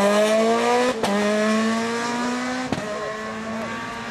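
Rally car engine pulling hard as the car accelerates away, its pitch climbing steadily, with two quick upshifts about a second and just under three seconds in, each marked by a short crack and a drop in pitch.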